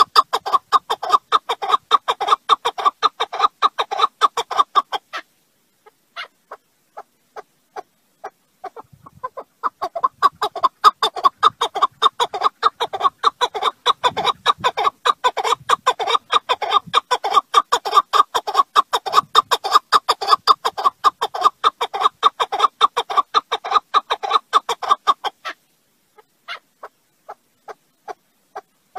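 Chukar partridge calling: a long, fast run of short clucking notes, many a second. The run breaks off for a few seconds with only a few scattered notes, then starts again for a longer stretch before thinning to scattered notes near the end.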